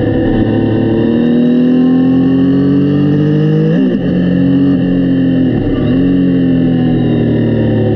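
Yamaha Tracer 900's inline three-cylinder engine pulling under acceleration, its pitch climbing steadily, then dropping sharply just before the middle as it shifts up. It dips briefly again about two seconds later, then runs on steadily.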